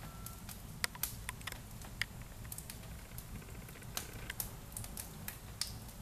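Wood fire crackling in a fireplace: quiet, sparse and irregular sharp pops and ticks over a low steady hum.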